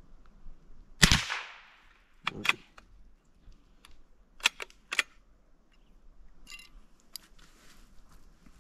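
One shot from a CIL single-shot .22 LR bolt-action rifle about a second in, a sharp crack with a short echo, then a handful of small metallic clicks as the rifle's action is handled.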